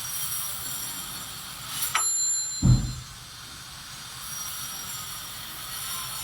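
A sharp metallic clink that rings briefly about two seconds in, followed at once by a short low thump, over a steady hiss.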